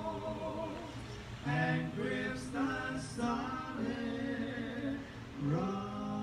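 Singing of a slow hymn, with long held notes that step from one pitch to the next.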